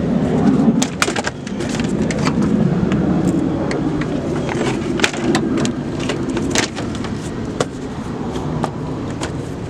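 Toyota Camry engine idling steadily with the AC switched on, a continuous low hum with scattered sharp clicks and ticks over it. The running is called smooth, "like butter".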